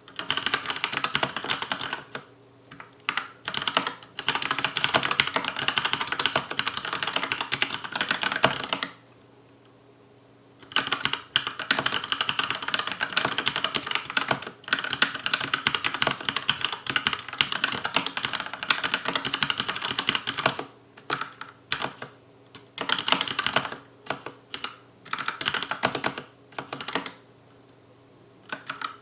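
Touch typing on a Logicool K835 tenkeyless mechanical keyboard with TTC linear red switches: fast, dense runs of clacky keystrokes, with short pauses and one longer pause of about two seconds near the middle.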